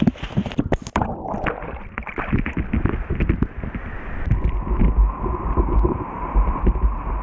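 Whitewater rapids churning and splashing around a kayak, heard close up from the paddler's helmet camera, with water slapping the microphone and a heavy low rumble of wind and water buffeting it. The sound is briefly muffled about a second in.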